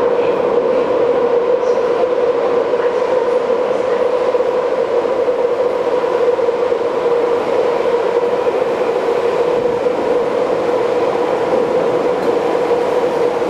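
Tokyu 5050 series electric train running through the tunnel and into an underground station platform: a steady rumble with a constant hum that does not let up.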